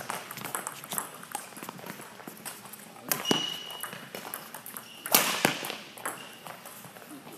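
Badminton rally in a hall: rackets hitting the shuttlecock and players' feet on the court, in many short sharp strikes. A short high squeak comes a little over three seconds in, and a louder hit about five seconds in.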